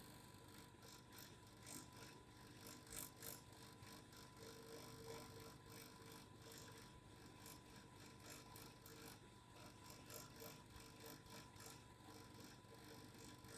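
A faint, steady vibrating hum with held tones, overlaid by light, irregular ticking.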